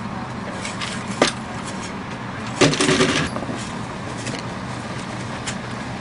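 An engine running steadily, with a sharp click about a second in and a short clattering burst around the middle, during hand digging in a trench rescue.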